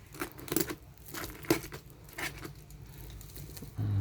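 Cardboard box and packaging being opened and handled by hand: irregular crinkling, rustling and light knocks, with a soft thump near the end.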